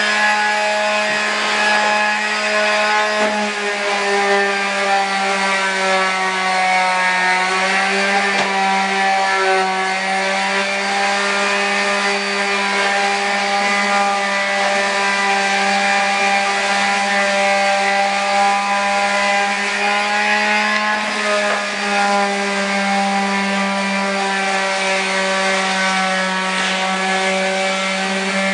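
Electric power sander running loud and steady against dried drywall joint compound, a motor whine with rubbing grit noise over it, its pitch sagging slightly now and then as it is pressed to the wall.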